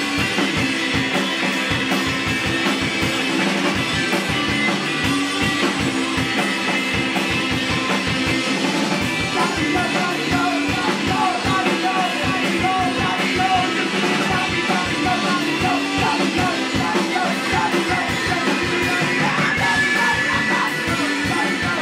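Live rock band playing electric guitars over a drum kit, with a singer's voice coming in about halfway through.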